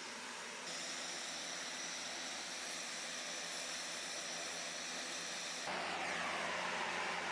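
Steady engine noise of an MQ-9 Reaper drone's turboprop, with a high whine; it changes abruptly twice, and a falling whine sets in near the end.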